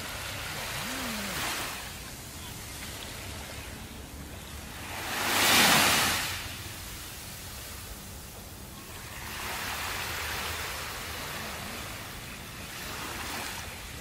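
Small waves washing onto a sandy beach one after another, each a swell of hiss that rises and fades; the loudest breaks about halfway through.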